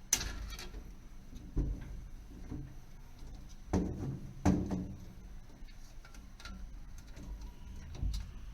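Knocks and clicks of hands and tools working an old spot-type heat detector loose from its ceiling base: about five sharp knocks, the loudest about four and a half seconds in, with fainter ticks between.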